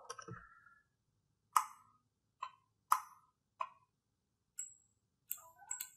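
Computer mouse clicking, about eight short, sharp clicks at irregular intervals, faint.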